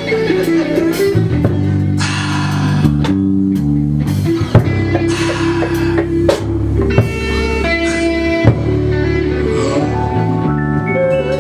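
Live band playing an instrumental passage: electric guitar and bass guitar over a drum kit with cymbals.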